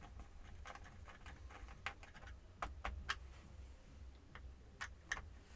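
Small screwdriver and hand tools working at a tiny screw in a laptop's case: a scatter of short, light clicks and ticks at uneven spacing, over a low steady hum.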